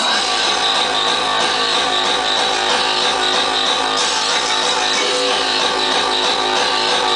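Hardcore techno played live over a loud club sound system: a fast, steady pounding kick drum comes back in right at the start, under a sustained pitched synth line.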